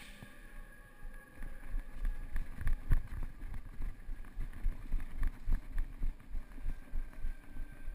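Running footsteps on a concrete floor, heard through a body-worn camera as low bumping thumps about three a second, with some wind noise on the microphone.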